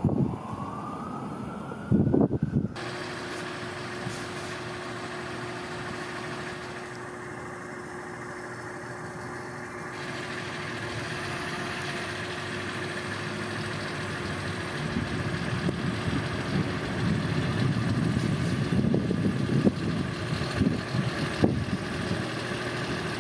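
A fire engine's siren wailing, cut off about three seconds in. Then a fire rescue truck's diesel engine idles with a steady hum, growing louder and uneven from about halfway as the truck moves off.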